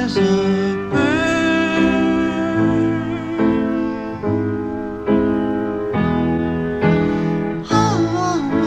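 A song with piano chords changing about once a second. A singing voice glides in pitch briefly at the start and again near the end.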